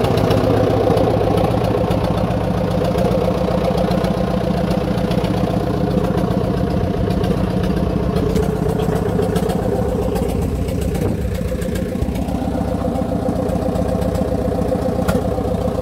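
Ford Major tractor engine running steadily, heard from the driver's seat as the tractor creeps downhill in a low gear.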